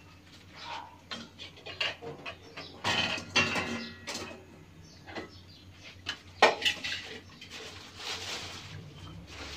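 A metal spoon clinking and scraping against a stainless steel pot while scooping thick curry paste mixture into banana-leaf cups. It comes as a series of irregular knocks and clinks, the loudest about three seconds in and again past the middle.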